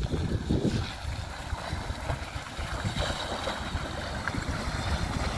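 First-generation Honda Ridgeline's V6 engine running as the pickup drives slowly into a mud patch, with wind rumbling on the microphone.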